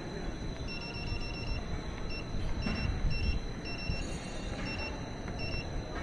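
Keypad beeps from an A/C refrigerant recovery and charging machine as its arrow buttons are pressed and held to set the charge weight to about 450 grams. A quick run of short high beeps comes about a second in, then single and paired beeps about half a second apart, over a steady low background.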